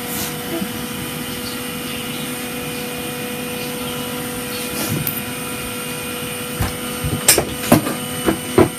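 A small motor's steady hum, with about five sharp knocks and clicks close together in the last two seconds.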